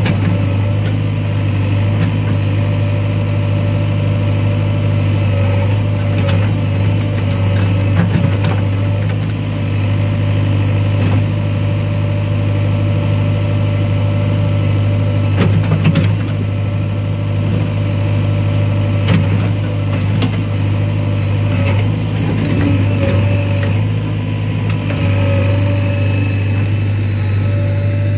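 JCB 3DX Eco Xpert backhoe loader's 49 hp diesel engine running steadily while the backhoe digs, with a few short knocks from the digging.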